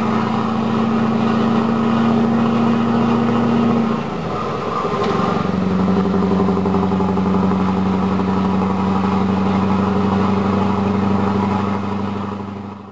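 Scania 164 580's V8 diesel engine pulling the truck at road speed with a steady drone. About four seconds in the note drops away briefly and returns at a lower pitch, then holds steady until it fades out at the end.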